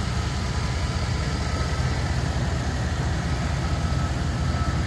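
GMC Savana van's engine idling steadily with the hood open, warming up to operating temperature after a radiator replacement.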